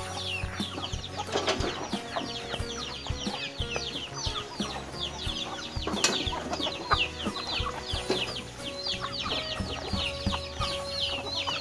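Chickens: a constant stream of rapid, high, down-sliding peeps with clucking underneath, and a sharp click about six seconds in.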